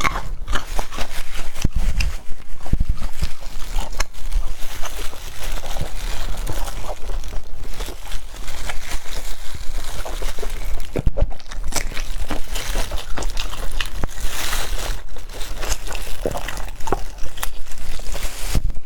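Close-miked chewing and eating of food, a dense, irregular run of small clicks and smacks.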